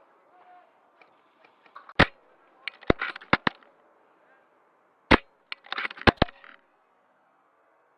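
Two sharp shots, about three seconds apart, from a VSR-10 spring-powered bolt-action airsoft sniper rifle. Each shot is followed by a quick run of clicks and knocks.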